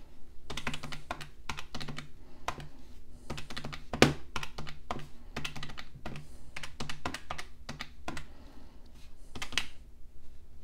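Plastic keys of a Catiga desktop calculator tapped in quick, irregular succession as a string of figures is entered and added up, with one louder click about four seconds in.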